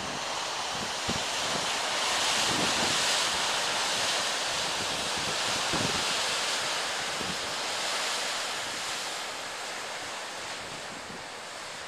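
Ocean surf breaking and washing over rocks: a steady rush of foaming water that swells a couple of seconds in and eases off near the end.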